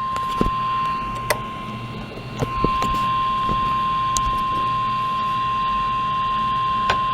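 NOAA Weather Radio warning alarm tone: one steady high beep near 1,050 Hz, the signal that a warning message follows. A low hum and a few sharp clicks sit underneath it.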